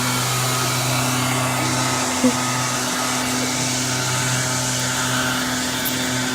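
Steady hum and rushing whoosh of a car idling with its ventilation fan running, with one short knock about two seconds in.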